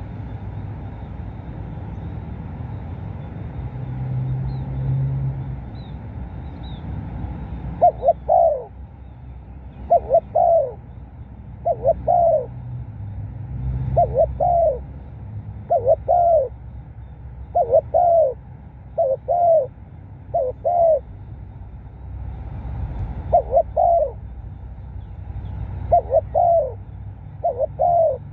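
Spotted dove cooing. From about eight seconds in, short paired coos repeat roughly every two seconds over a steady low background rumble.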